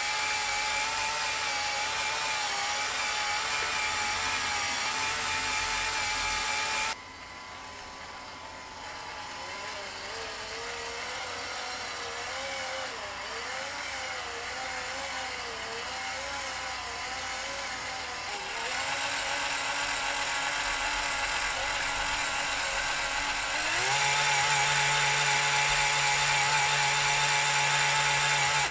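Small electric motors in a Lego Technic crane running through plastic gear trains, giving a steady whine. The pitch jumps to a new level several times. In the middle the whine wavers up and down as the load changes. Near the end it is loudest, with a low hum underneath.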